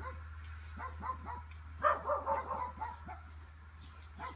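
A small dog yapping in a quick string of short, high barks: a few about a second in, then a denser run a little later.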